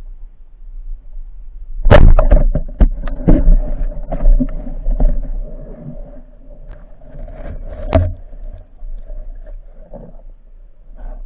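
Sharp knocks and rattles picked up underwater: a loud crack about two seconds in, a quick run of clattering knocks for a few seconds after it, and another sharp click near eight seconds.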